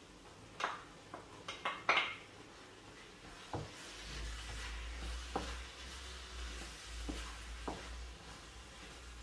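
Cooking greens in a frying pan: a few quick light clicks and taps, then a wooden spoon stirring and knocking against the pan every second or so over a faint sizzle. A low steady hum comes in about four seconds in.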